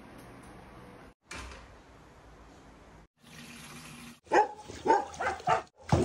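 Dogs barking, about four sharp barks in quick succession starting about four seconds in, the loudest sound. Before that, only a quiet steady hiss that breaks off twice.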